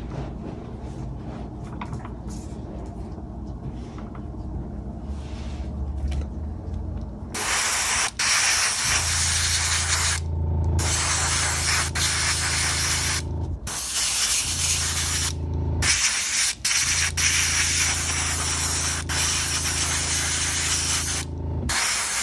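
Airbrush spraying thinned primer onto a model part: a loud steady hiss starts about seven seconds in and is broken by four short pauses, over a low steady hum.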